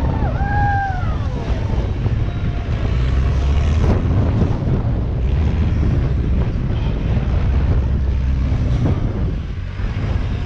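Rock-crawler buggy's engine running under load as it climbs a near-vertical rock ledge, with wind buffeting the microphone. A single sharp knock sounds about four seconds in.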